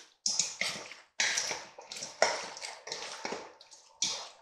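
Bare hands tossing baked chicken wings in a thin lemon-juice sauce in a stainless steel bowl: an irregular run of wet squelches and slaps, two or three a second.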